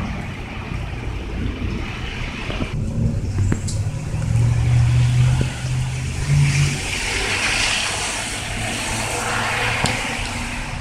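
Car driving past on a wet street. Its engine hums low and steady, then the hiss of its tyres on the wet road swells about six seconds in and fades.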